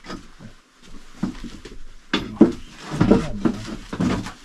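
Indistinct voices in a small room, with a few light knocks.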